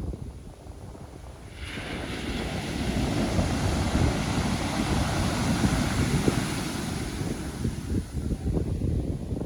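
Pacific Ocean surf: a wave breaks about a second and a half in, and its hissing wash holds for several seconds before easing off. Wind buffets the microphone throughout.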